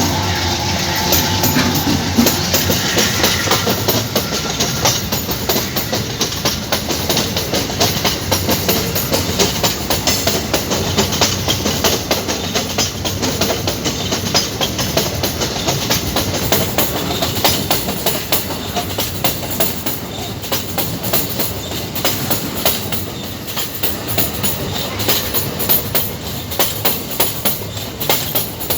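Empty iron ore train wagons rolling past, their wheels clattering in a fast, continuous rhythm over the rail joints.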